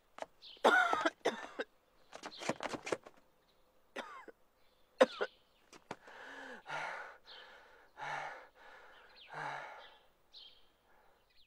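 An injured man coughing, gasping and groaning in pain, then taking slow, laboured breaths with low groans about every second and a half as he weakens and slumps.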